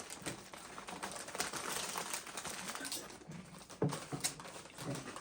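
Doritos tortilla chips crunching as they are chewed, a dense run of small dry cracks and crackles.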